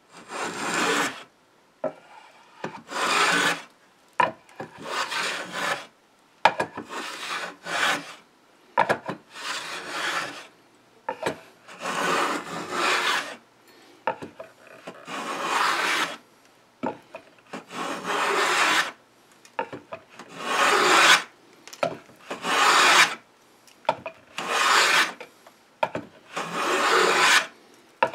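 Metal rabbet plane cutting a rabbet along the edge of a mahogany board to take off waste wood. It makes repeated shaving strokes, each about a second long with a short pause between, roughly one every one and a half to two seconds.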